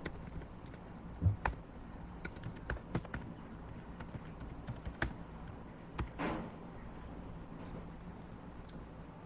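Computer keyboard typing: scattered, irregular keystrokes, a few of them louder clicks.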